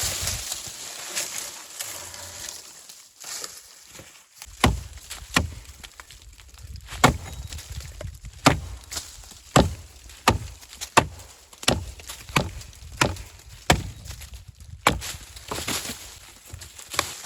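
Wood being chopped with a blade in steady, even strokes, about one and a half a second, starting about four seconds in. Each stroke is a sharp knock with a dull thud under it. Before the chopping there is a soft rustling noise that fades out.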